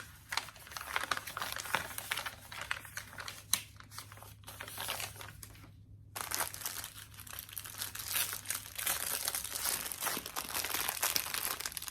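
Small plastic bags of diamond-painting drills crinkling as they are handled, with irregular rustling crackles and a brief pause about halfway through.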